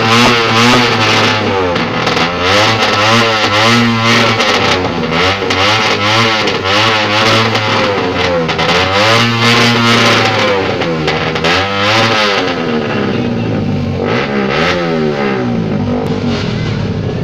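Suzuki Raider motorcycle engine revved hard again and again on a stand, its pitch swinging up and down about once a second over a steadier low drone.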